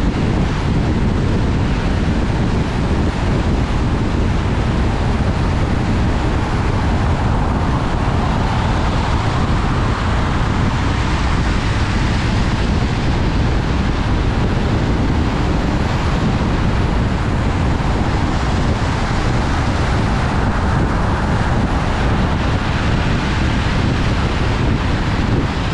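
Steady road noise of a car driving at highway speed on a wet road: tyre hiss and wind, even and unbroken, heard from inside the car.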